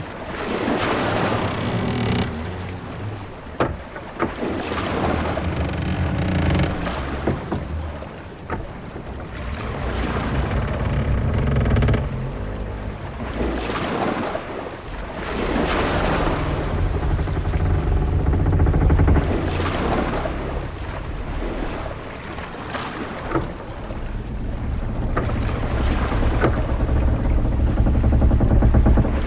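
Sea waves washing against a ship and wind blowing, swelling and falling every few seconds, with a few sharp knocks a few seconds in.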